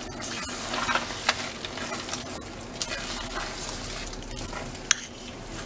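A spoon stirring and scraping cornmeal that is cooking into a thick dough in a pan of hot tomato and sardine broth, with a light sizzle. Small irregular scrapes and knocks run through it, with one sharper click about five seconds in.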